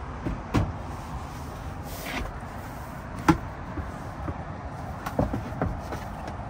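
Hard knocks and clunks of interior panels and padded bed boards being handled and set down inside a Volkswagen camper bus, the sharpest about three seconds in, with a brief sliding swish just before, over steady background noise.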